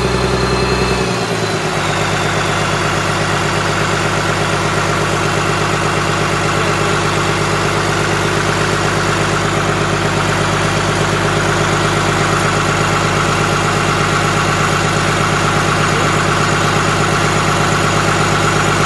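Komatsu SAA6D114E-3 six-cylinder turbodiesel of a PC300-8 excavator running after a major overhaul. About a second in the engine speed drops, and it then idles steadily.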